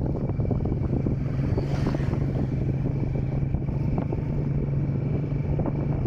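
Motorcycle engine running steadily while riding, with wind rushing over the microphone. About two seconds in, a brief swell of noise as an oncoming motorcycle passes.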